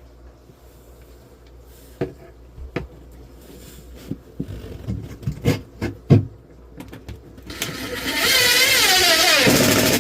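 A few scattered knocks and clicks of a screw and board being handled, then near the end a power drill driving a screw into the wooden support: about two seconds of motor whine that drops in pitch as the screw bites in.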